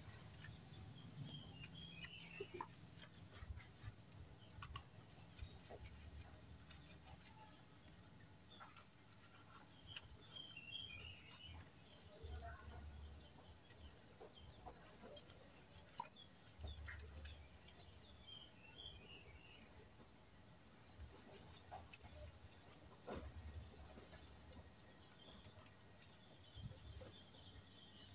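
Faint outdoor ambience of small birds chirping, short high chirps repeating every second or so. Occasional soft clicks and rubbing come from a wet cloth scrubbing a plastic tail-light lens.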